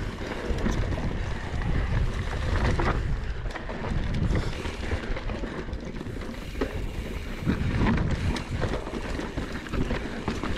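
Wind rushing over the microphone of a mountain bike in motion, with the uneven rumble of tyres on a rough dirt trail and scattered clicks and knocks from the bike jolting over rocks.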